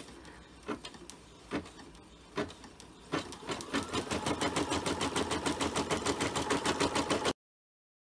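Home embroidery machine starting to stitch out a design: a few slow, separate needle strokes about a second apart, then from about three seconds in a fast, even stitching rhythm that picks up speed. The sound cuts off suddenly near the end.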